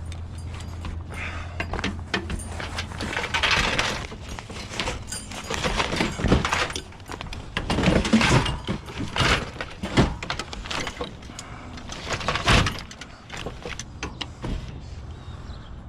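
Junk being handled and rummaged through: repeated irregular clattering, knocking and scraping of metal and plastic items, loudest in several bursts through the middle.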